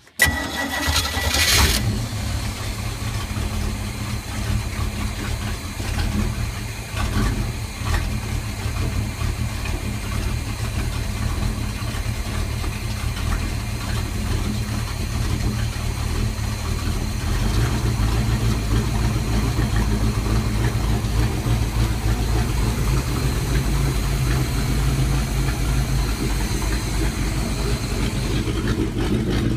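A ski boat's inboard engine starting, with a brief burst as it catches, then settling into a steady idle.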